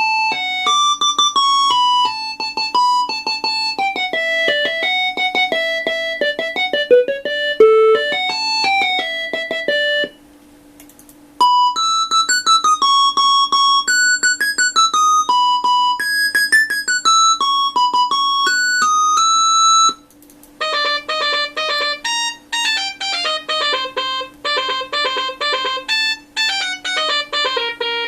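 Nokia 3585 ringtone melodies played as MIDI through a Sound Blaster Live! card with the Mobile60 soundfont: bright electronic keyboard tunes of quick, short notes. There are two brief pauses between tunes, and a steady low hum runs underneath.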